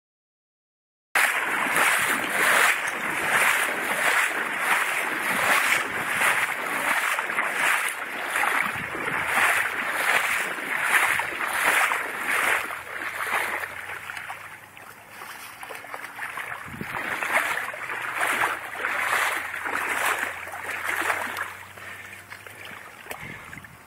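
Footsteps wading through shallow water, a splash and slosh about twice a second, growing fainter for a few seconds past the middle.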